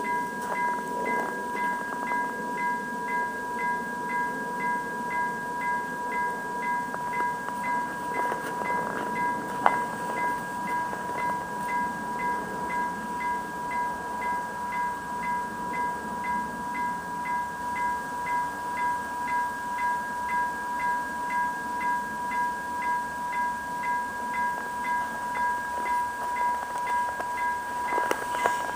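Level-crossing warning bell ringing in an even repeated ding, about two strokes a second, signalling an approaching train. A single sharp click comes about ten seconds in, and the approaching electric commuter train starts to be heard under the bell near the end.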